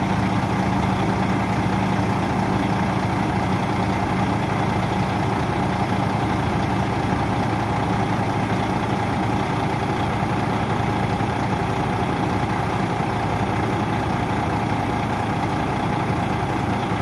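A heavy tri-axle dump truck's diesel engine idling steadily.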